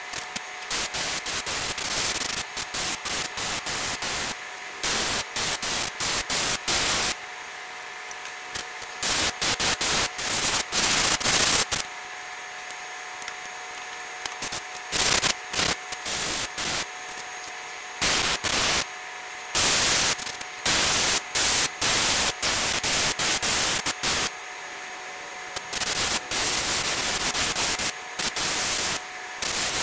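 Airbrush hissing in short, irregular bursts as the trigger is pressed and released, over a faint steady hum.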